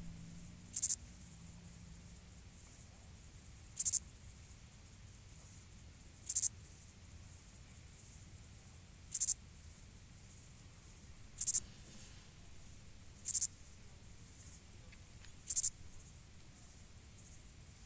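Short, high-pitched insect chirps, seven in all, each under half a second and spaced two to three seconds apart, over a faint low steady background.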